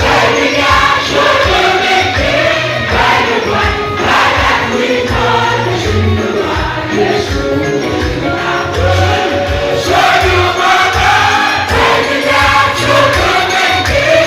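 Gospel worship music: a group of voices singing over a heavy, pulsing bass beat.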